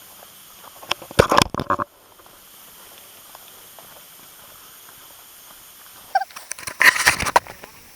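Footsteps crunching and rustling through dry leaves and twigs on a woodland trail, in two short bursts: about a second in and again about six seconds in, over a faint steady hiss.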